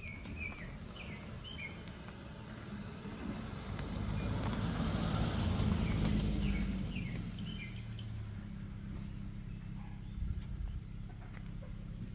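A vehicle passes, its noise swelling to a peak about six seconds in and then fading, over a steady low hum. Small birds chirp throughout.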